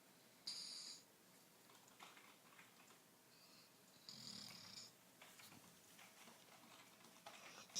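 Faint snoring: two snores about three and a half seconds apart, the second with a low rasp under it.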